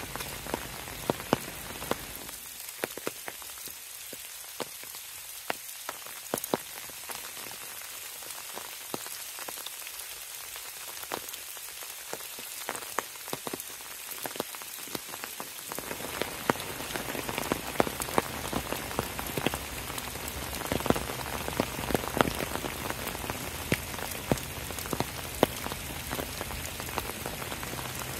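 Steady rain falling, with many individual drops ticking sharply close by. About halfway through, the rain sound grows fuller and a little louder.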